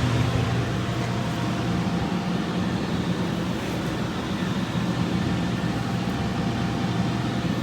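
Furnace/air-handler blower motor running steadily, moving air with a low hum. It is running again on a newly replaced control board, the old board having been found defective.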